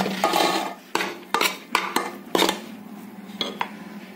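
Metal spoon scraping and clinking against the side of a steel pot while stirring rice: a scrape at the start, then a string of sharp clinks, getting quieter toward the end.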